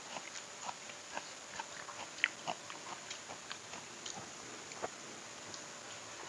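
Close-miked eating by hand: irregular wet mouth clicks and smacks of chewing fried catfish and rice, with fingers picking at the food on the plate. The sharpest click comes about two seconds in.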